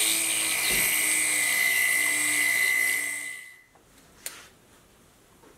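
Small rotary handpiece spinning a ball burr into a rivet hole in metal sheet, a steady high whine with cutting hiss. It winds down and stops about three and a half seconds in, and a light click follows.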